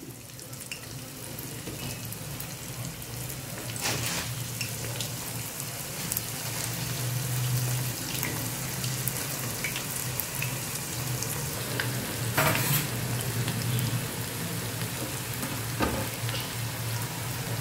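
Oats-and-vegetable manchurian balls deep-frying in hot oil: a steady sizzle and bubbling that grows louder over the first few seconds as more balls go in, with a few sharper crackles.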